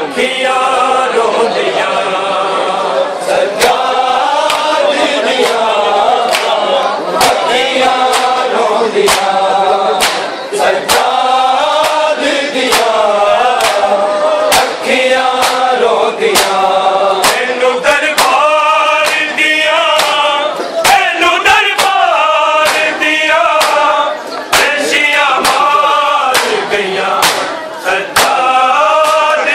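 A group of men chanting a Punjabi noha lament in unison. Sharp strikes in a steady beat run through it, a little over one a second: the chest-beating (matam) that keeps time to the noha.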